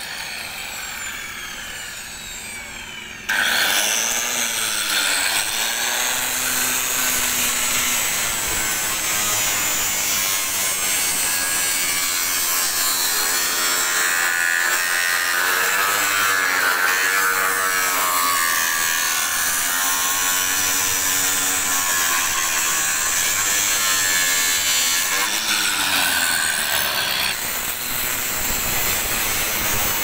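Electric angle grinder cutting through a steel T-iron roof girder: after a quieter first three seconds it starts abruptly and runs loudly and continuously, its pitch wavering as the disc bites into the steel.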